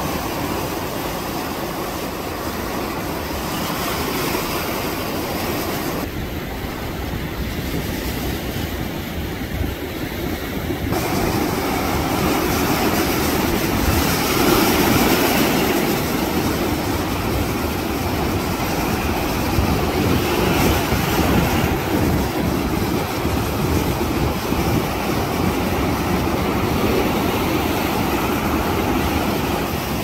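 Ocean surf breaking on the shore: a continuous rushing of waves that swells louder about halfway through and ebbs again.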